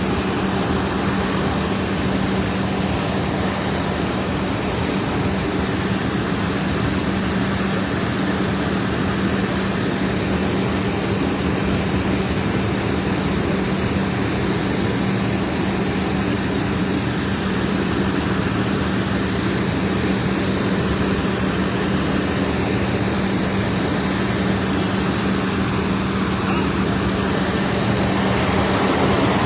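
An engine running steadily, a constant low hum under a loud rushing noise.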